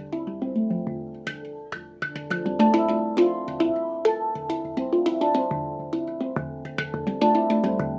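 Handpan tuned to D (D F G A C D E F A), played with bare hands in a quick, lively rhythm: struck notes ring on over one another, with sharper taps mixed in between them.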